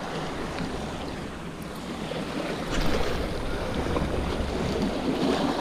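Sea surf washing against the rocks, with some wind on the microphone; the wash swells a little about three seconds in.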